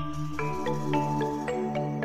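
Music: a quick run of struck, ringing notes, about four a second, over a steady low drone.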